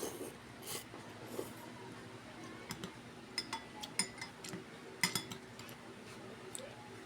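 Eating utensils clinking and tapping against a dish: a run of light clinks, each with a short ring, most of them between about two and a half and five seconds in.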